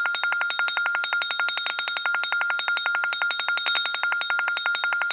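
Smartphone alarm tone ringing: a rapid, even train of electronic pulses over a steady high ring, sounding the morning wake-up alarm.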